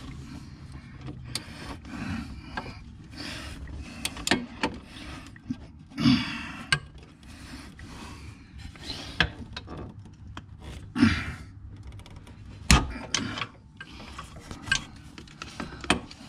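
Hand ratchet on a long extension and wobble turning a rear shock mounting bolt: irregular runs of ratchet clicking and rasping, with sharp metal clinks and knocks in between.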